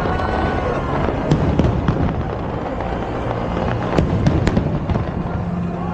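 Aerial fireworks bursting, with sharp bangs in two clusters, about a second in and again about four seconds in, over a continuous crackle and rumble of shells.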